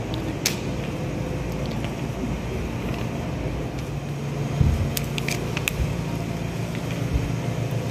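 Steady low mechanical hum of an airport terminal hall, with a few sharp clicks about half a second in and again around five seconds in.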